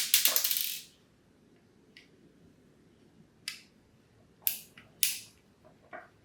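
Small tools and parts clicking against the plastic housing of a smart doorbell camera being taken apart by hand. There is a rattle of rapid clicks lasting about a second at the start, then several separate sharp clicks and taps.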